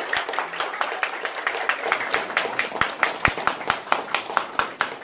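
A small crowd applauding, with one person clapping close by, loud and steady, at about five claps a second.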